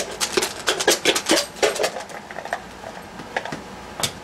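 Game tokens and pieces clicking and clattering as they are handled on a table: a quick run of small clicks in the first two seconds, then a few single clicks.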